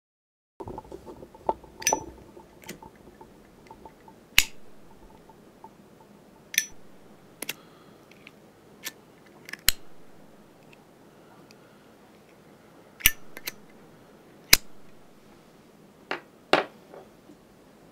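A metal flip-top lighter being fiddled with, its lid snapping open and shut in about a dozen sharp, irregular clicks, some with a brief metallic ring.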